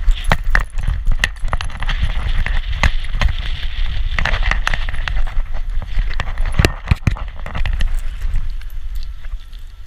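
Rumble and wind buffeting on an action camera strapped to a small dog's back as the dog moves about, with scattered sharp clicks and rattles from the mount and harness. The clicks thin out and the rumble eases near the end.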